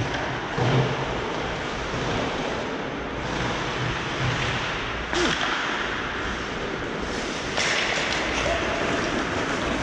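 Hockey game ambience at the rink: a steady wash of noise, with a sharp crack right at the start and a louder knock just under a second in, typical of sticks and puck striking.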